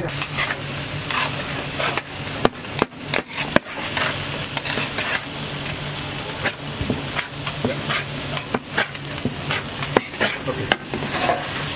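Food sizzling on a hot griddle while metal utensils scrape and clack against it, with a cluster of sharp knocks about two and a half to three and a half seconds in and a low steady hum underneath.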